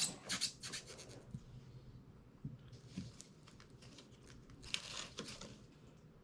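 Packaging being handled during an unboxing: rustling, crinkling and small clicks in a few short spells, near the start, around three seconds in and again near five seconds.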